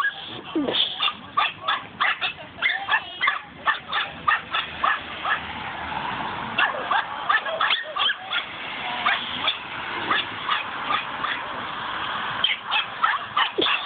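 Dogs barking and yipping at play, a quick run of short, sharp barks, several a second.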